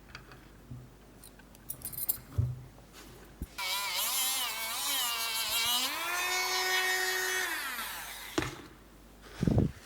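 Electric power drill running for about five seconds: its whine wavers, rises to a steady pitch, then winds down. A few clicks and sharp knocks come before and after it.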